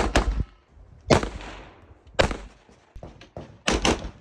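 Rifle shots, about eight of them over four seconds, several fired as quick pairs, each a sharp crack that rings out briefly.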